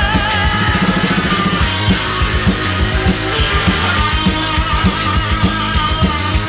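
Rock music with a steady drum beat and guitar; a held sung note with vibrato ends just after the start.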